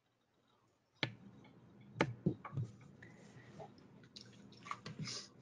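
A run of faint, short clicks and taps, a few every second, over a microphone's hiss that switches on suddenly about a second in.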